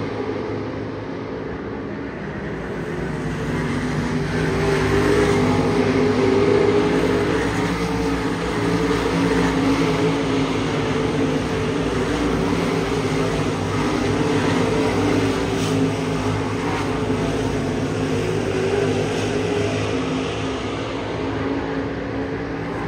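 A field of dirt super late model race cars running laps together, their V8 engines blending into one steady drone that grows louder a few seconds in and then eases off.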